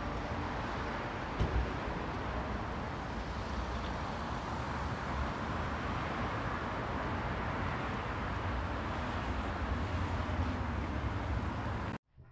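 City street traffic: a steady wash of passing cars with a low rumble, and a short thump about a second and a half in. It cuts off abruptly near the end.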